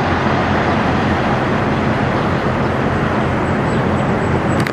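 Semi truck's diesel engine running steadily as the tractor-trailer pulls away, a constant low drone.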